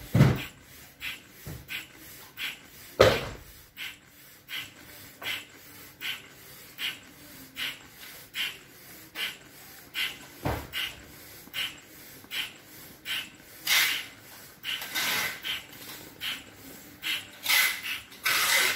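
Bellows foot pump worked by hand, each press pushing a puff of air through its hose into an inflatable vinyl paddling pool, in a steady rhythm of about one stroke every three-quarters of a second. A few longer, louder rushes come near the end.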